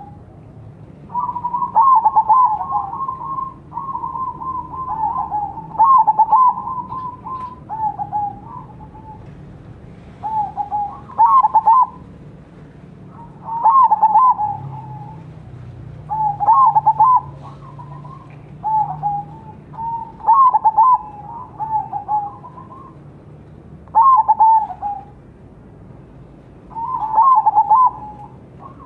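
Crossbred zebra dove (perkutut) cooing its soft, rolling song: bursts of quick coos come every two to three seconds, some phrases following close on one another.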